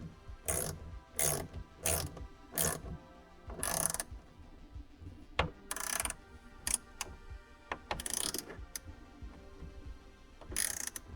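Ratchet wrench clicking in short strokes, about a dozen irregularly spaced bursts.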